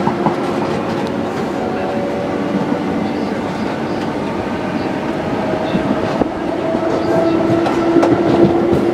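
Train running at speed, heard from inside the carriage: a steady rumble with a hum under it and sharp clicks of the wheels over rail joints.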